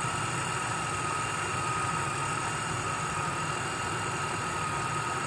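Supercharged Chevrolet Monte Carlo engine idling steadily under an open hood, a steady high whine over the low running rumble.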